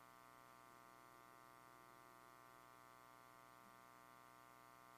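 Near silence apart from a faint, steady electrical hum and buzz from the microphone and sound system, unchanged throughout.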